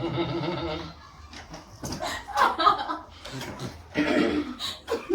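Short bursts of human voice with chuckling and laughter.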